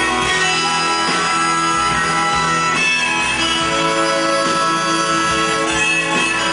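Rock band playing live, with electric and acoustic guitars, keyboard and drums, heard loud and steady from among the audience.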